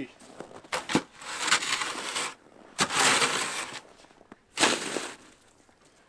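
Snow shovel digging and scraping into fresh, fluffy snow in about four strokes, each a short crunching scrape.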